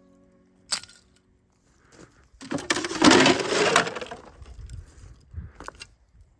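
Ice cracking and breaking: a sharp crack, then a loud crunching shatter lasting under two seconds, with a few small clinks after it.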